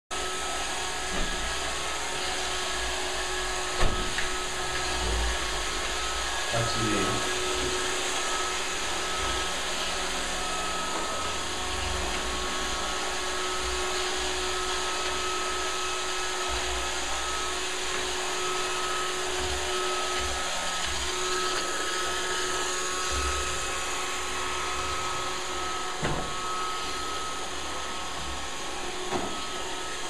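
iRobot Roomba robot vacuum running on a tile floor: a steady whir of its motors and brushes with a couple of steady tones in it. A few sharp knocks break through it, the loudest about four seconds in.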